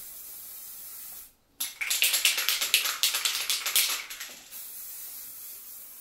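Aerosol spray paint can spraying: a steady hiss that breaks off briefly about a second in, then a run of short, rapid spurts before settling back to a steadier hiss.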